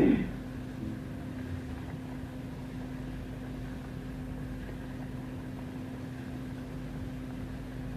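Steady low background hum with hiss and no speech. A short louder sound comes right at the start.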